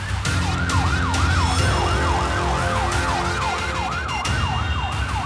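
Emergency-vehicle siren in a fast yelp, sweeping up and down about three times a second, over a low rumble.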